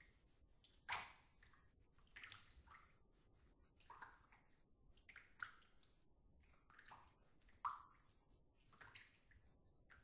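Water in a filled bathtub, faintly sloshing and dripping as a bather moves, with irregular small splashes about every second or two. The sharpest come about a second in and near the end.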